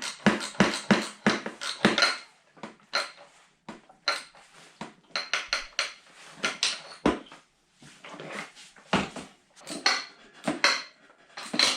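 Irregular metallic clicks and clinks of hand tools and aluminum handlebar clamps and bolts being handled and fitted, quicker in the first couple of seconds.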